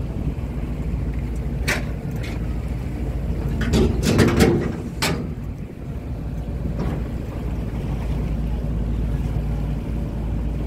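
Small river ferry's engine running with a steady low drone while under way. A few sharp knocks and clatters come between about two and five seconds in.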